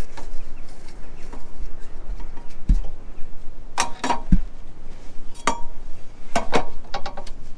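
A handful of sharp metallic clinks and knocks, spaced about a second apart, over a steady background noise: a ladder and a metal gutter being handled during gutter cleaning.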